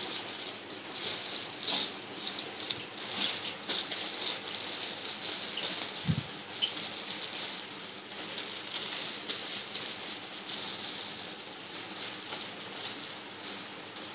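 Clear plastic wrapping crinkling and rustling in irregular crackles as hands handle it and try to pull it off, busier in the first few seconds.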